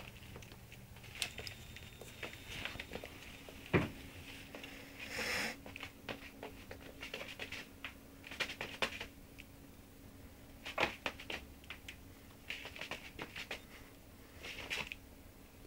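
Scattered light taps, clicks and short rustles as a small puppy moves about, first on a blanket and then on a wooden floor.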